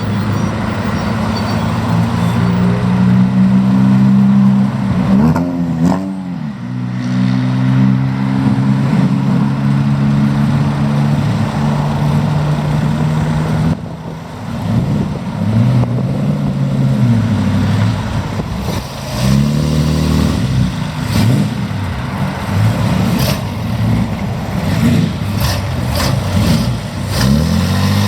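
Vintage sports car engines, an Invicta S Type and an Alfa Romeo 8C Monza, idling steadily and being blipped and revved as they pull away, with several rises and falls in pitch. Near the end come a few sharp cracks.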